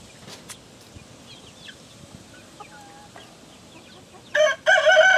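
A rooster crows near the end: a loud call that starts with a short note, then goes into a long held one. Before it there are only faint, scattered short chirps.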